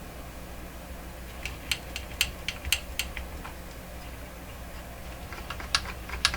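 Vacuum tubes being wiggled in their sockets with the radio switched off, giving irregular small clicks and rattles, in a cluster about a second and a half in and again near the end. The wiggle reseats the tube pins to clear poor socket contacts.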